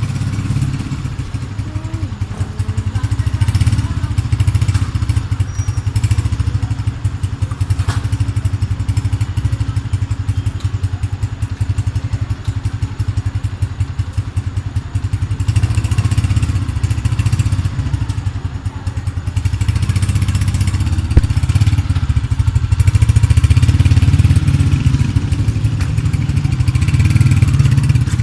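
Small motorcycle engine running with a loud exhaust, swelling louder several times and loudest near the end.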